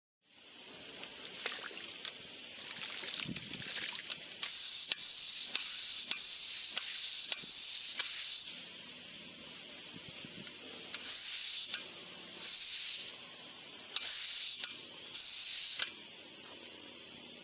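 Pool brush scrubbing the pool wall in the water: hissing, swishing strokes over faint trickling water, a long run of strokes for about four seconds, then four shorter separate strokes near the end.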